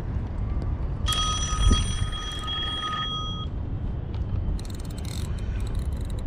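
Mobile phone ringtone: a steady electronic ring of several pure tones starting about a second in and lasting about two and a half seconds. Low wind rumble on the microphone runs throughout, with a run of faint sharp clicks near the end.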